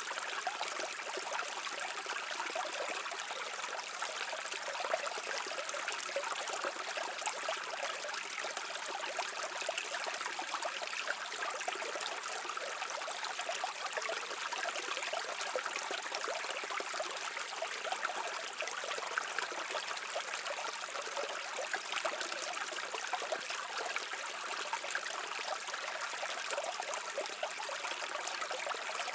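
A shallow brook running over stones: a steady babble of water full of small trickles and splashes.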